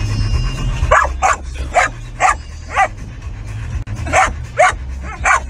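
Young golden retriever barking: a run of five quick barks about half a second apart, a pause, then three more, over a steady low rumble.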